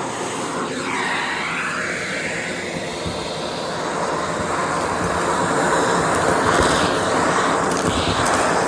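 Vacuum cleaner running, its airflow note sweeping up and down in pitch as the head is pushed back and forth, with crunchy crackling of debris being sucked up about seven seconds in.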